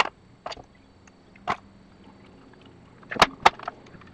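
Steel parts clinking and knocking against a steel-topped workbench while a machine skate is being assembled. It comes as a few separate sharp knocks, with the two loudest about a third of a second apart near the end.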